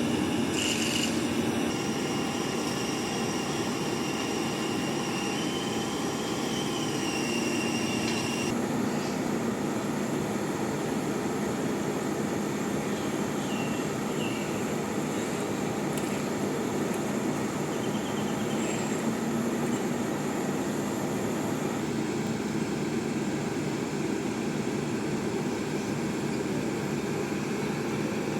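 Steady running noise of heavy machinery, with a faint high whine that stops abruptly about eight seconds in.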